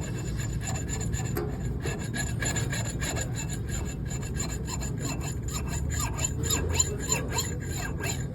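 Worn A/C compressor on a 2009 Honda CR-V running with the A/C switched on, giving a continuous harsh scraping and rasping over the engine's running, with irregular ticks: the compressor is wearing out.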